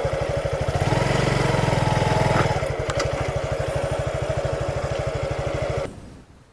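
Suzuki Gixxer 150's single-cylinder four-stroke engine running at low speed with an even pulse. It swells louder for a second or so about a second in, then cuts off abruptly near the end.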